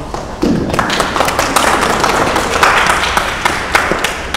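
A small group clapping. The clapping starts sharply about half a second in, holds for roughly three and a half seconds and dies away near the end.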